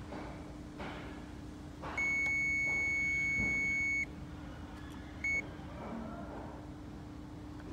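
An electronic beeper sounds one long, steady high-pitched beep of about two seconds, then a second short beep about a second later. A steady low hum runs underneath.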